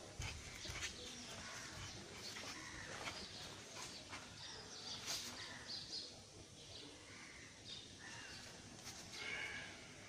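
Birds chirping on and off in the background, with a few brief sharp sounds, the strongest about five seconds in.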